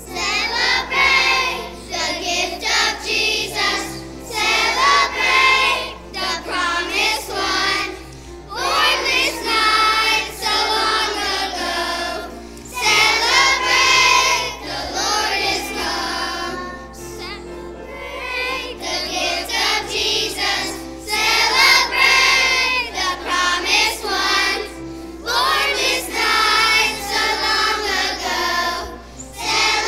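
Children's choir singing a song in phrases with short breaks between them, over a musical accompaniment.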